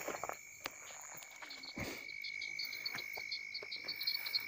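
Night chorus of frogs and insects: a steady high-pitched trill with rapid pulsing calls over it, thicker in the second half. A few scattered clicks, the strongest about two seconds in.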